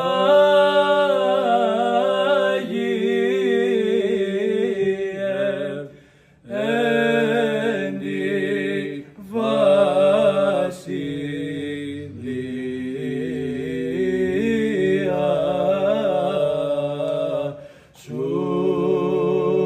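Two men singing Orthodox liturgical chant unaccompanied, in phrases with brief breaks between them.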